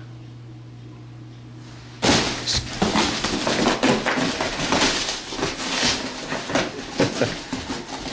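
A steady low hum, then about two seconds in, loud rustling, crackling and tearing of wrapping paper and cardboard with scattered knocks as a dog rips open a wrapped box.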